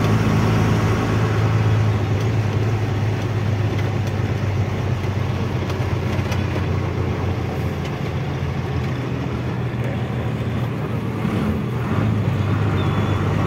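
Truck engine running under way: a steady low drone over road noise, which eases off in the middle and picks up again near the end.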